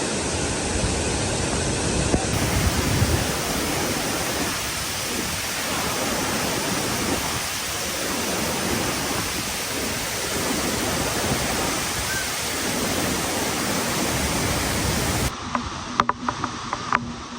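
Waterfall rushing: a steady, loud wash of falling water that cuts off abruptly near the end, giving way to a quieter stretch with a few sharp clicks or knocks.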